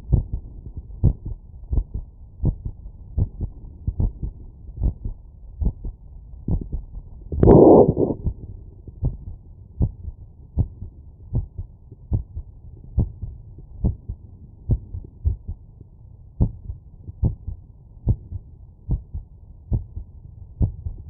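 Heart beating through a stethoscope after exercise: steady, regular lub-dub thumps. A short burst of louder noise comes about seven and a half seconds in.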